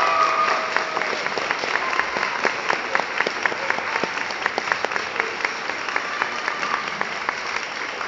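Audience applauding steadily, a dense patter of many hands clapping. A last held musical note fades out about a second in.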